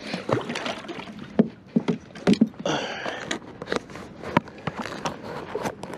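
Water splashing and sloshing at a small boat's side as a freshly caught walleye is handled over the gunwale, with scattered sharp knocks and clicks.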